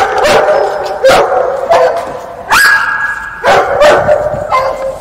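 Kennel dogs barking repeatedly, about eight sharp barks, one drawn out into a longer yelp about midway.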